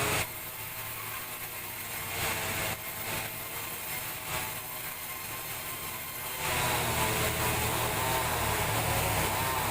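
Sawmill machinery running, with sudden changes in level: quieter for most of the first six seconds, then louder with a steady hum and a wavering whine.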